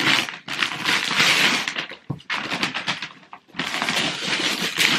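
Tissue paper and a paper gift bag crinkling and rustling as hands rummage and pull the paper out, in two long stretches with a short pause between.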